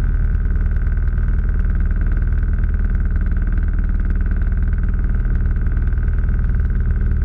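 Turbocharged Subaru EA81 engine of a Dragonfly homebuilt aircraft running steadily, driving its three-blade propeller directly, heard from inside the closed cockpit. The level and pitch stay even throughout.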